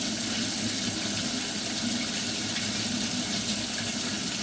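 Kitchen faucet running steadily into a sink.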